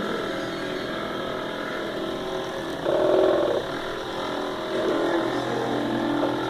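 Stepper motors of a hobby CNC machine whining as the axes move, the pitch stepping between steady tones from move to move. A louder, higher-pitched move comes about three seconds in and lasts about half a second.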